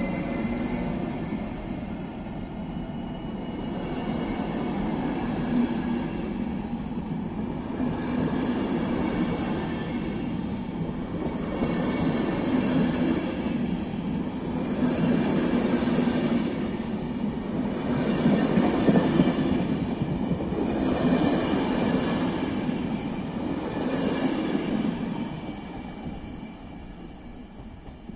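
Passenger train pulling out behind a Siemens electric locomotive: coach wheels rolling over the track, swelling every few seconds as the coaches go by, then fading near the end as the last coach draws away.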